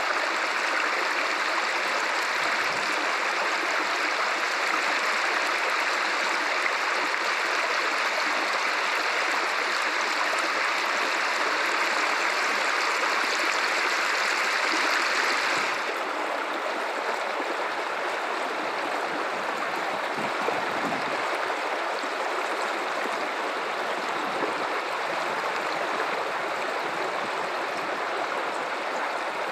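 River water running steadily. About halfway through, the sound abruptly becomes a little quieter and less hissy, then runs on evenly.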